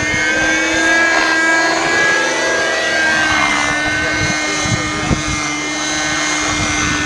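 Radio-controlled model helicopter in flight: a steady whine from its motor and rotor, the pitch drifting slightly as it manoeuvres. Wind buffets the microphone with low thumps.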